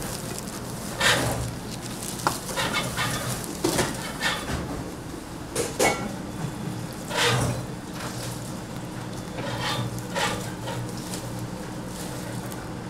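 Kitchen clatter: irregular clinks and knocks of dishes and utensils being handled, over a steady low hum.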